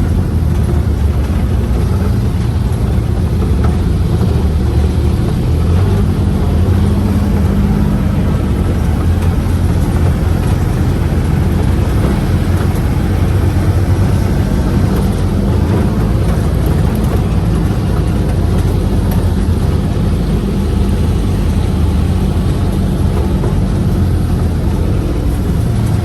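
Engine of a four-seat UTV running steadily while under way, a constant low drone.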